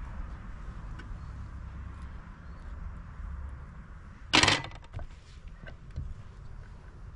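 A metal spoon clatters once, short and loud, against a metal pot about four seconds in, followed by a few light clicks of utensils.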